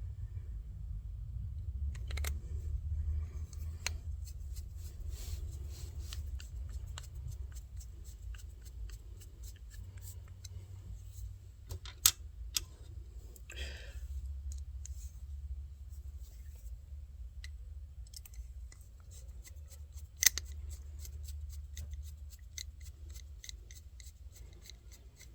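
Small screws and metal parts of an aluminium shift knob being handled and screwed in by hand: scattered light clicks and ticks, with two sharper clicks, over a low steady rumble.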